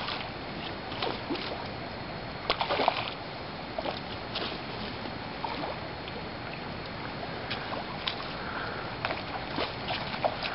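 Stream water running steadily, with a hooked trout splashing at the surface in short irregular bursts, the biggest about two and a half seconds in.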